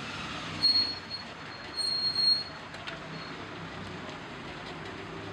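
Cloth rubbed hard over the metal of a hydraulic jack, squeaking twice at a high, steady pitch; the second squeak is longer and louder. A low workshop hum runs underneath.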